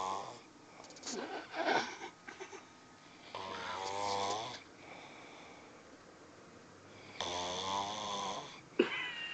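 A person snoring in sleep: long rattling snores about every four seconds, with noisier breaths between them. A sharp click near the end.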